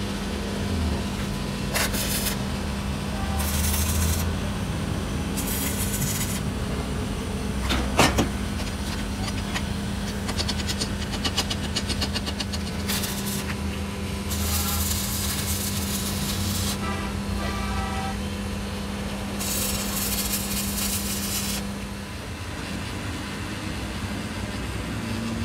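Metalworking by hand on a workshop floor: a steady low hum that stops near the end, a single sharp metal knock about eight seconds in, a short run of rapid ticking, and several hissing bursts lasting one to two seconds each.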